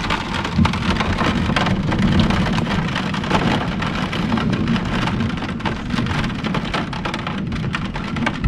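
Heavy rain pouring down steadily, a dense patter of countless drops striking close by.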